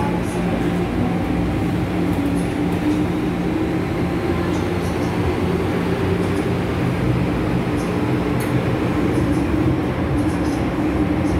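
Hong Kong MTR Island Line M-Train, a Metro-Cammell-built electric multiple unit, running through a tunnel, heard inside the car: a steady rumble of wheels on rail with a steady low hum and faint ticks.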